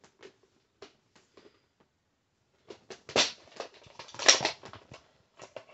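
Plastic VHS clamshell cases being handled and swapped: a few light scattered clicks, then from about three seconds in a denser run of clacking and rustling.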